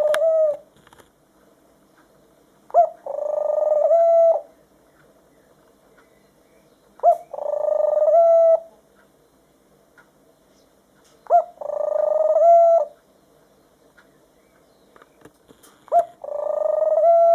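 Pet white dove cooing: a short sharp note, then a long drawn-out coo, repeated about every four seconds.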